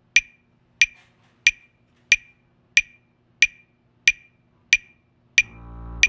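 A metronome ticking steadily at about 92 beats a minute. About five seconds in, a double bass starts a low bowed note that goes on under the clicks.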